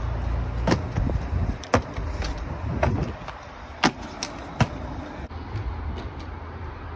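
Steady low outdoor rumble with scattered sharp taps, like shoes scuffing and stepping on pavement as a parkour athlete moves about.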